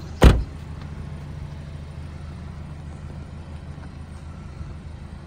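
A MINI Cooper S's door shutting with one loud thud about a quarter of a second in, then a steady low hum of the car's engine idling.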